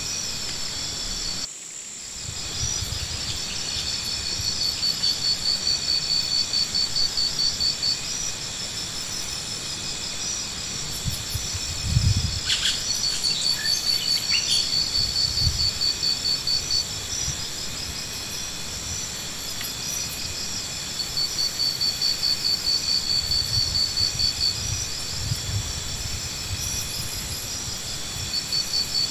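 Insects chirping in a rapid, steady pulse that swells and fades in bouts, with two dull low thumps about halfway through.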